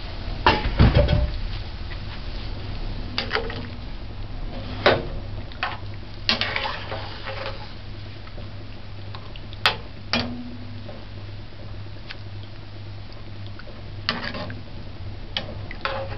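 Long metal spoon stirring a pot of stew in coconut milk, with scattered clinks and scrapes against the metal pot: a cluster in the first seven seconds, a couple around ten seconds in, and more near the end. A steady low hum runs underneath.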